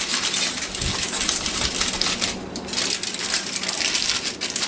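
Aluminium foil crinkling and crackling as it is handled and wrapped, a dense run of fine crackles with a short lull about halfway through.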